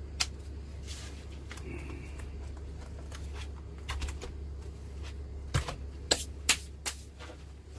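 An opened MacBook Pro with its bottom case off being handled, turned over and its lid opened. There is one sharp click just after the start and a run of four sharp clicks and knocks more than halfway through, over a steady low hum.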